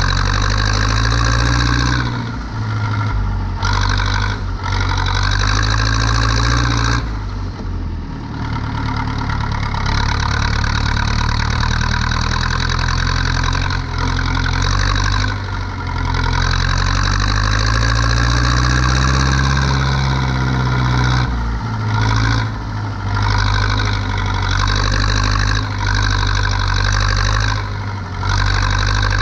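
Zetor 7245 tractor's four-cylinder diesel engine running steadily under load. Its pitch rises and falls, and the revs drop briefly several times.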